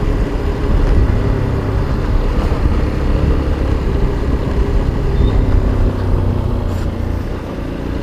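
Motorcycle engine running steadily while riding, with wind and road noise, heard from the rider's own bike.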